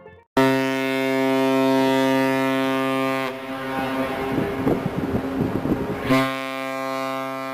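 The cruise ship Viking Sea's horn sounding two long, steady blasts of about three seconds each. Wind noise rushes in the gap between them.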